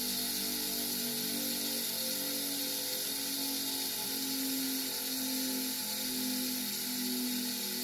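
Motor-driven leather buffing wheel running while a carving chisel is honed against it with compound: a steady hum and hiss, the hum swelling and fading a bit more than once a second.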